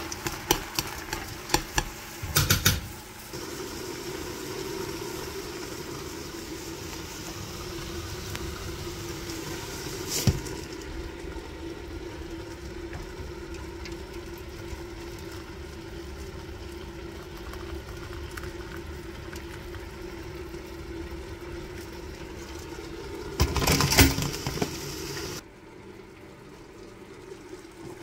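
A utensil stirring sliced mushrooms and onions in a stainless steel pot, with a quick run of clicks and scrapes against the metal, over a steady low hum. Near the end comes a few seconds of liquid being poured in.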